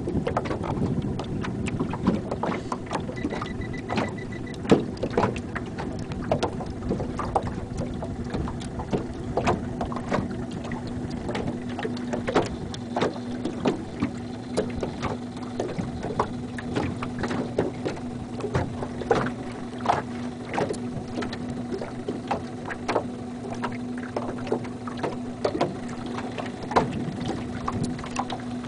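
A boat's motor runs with a steady low hum while small waves slap and knock against the hull over and over.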